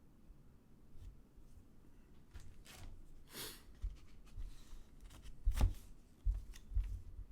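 Trading cards and pack wrappers being handled: scattered light taps and clicks, with a short rustling swish about three and a half seconds in and a sharper click a little after five and a half seconds.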